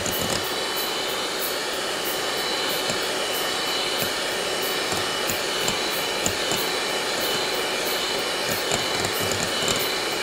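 Electric hand mixer running steadily, its twin beaters whipping a runny cream mixture in a glass bowl.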